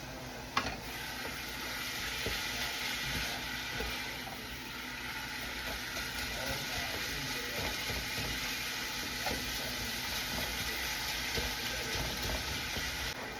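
Ground beef sizzling in a pan: a steady frying hiss that starts with a sharp click about half a second in, with light scattered ticks as it cooks.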